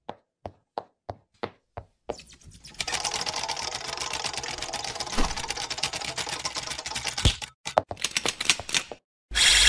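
Typewriter-style clacking sound effect: single key clicks about three a second, then a fast run of typing clatter lasting several seconds, then a few last clicks. A loud bright sound starts right at the end.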